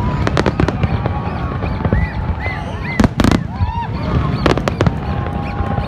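Aerial fireworks shells bursting in quick succession, sharp bangs that are loudest about three seconds in, over continuous crackle. Short rising-and-falling squealing tones and a held tone near the end sound between the bangs.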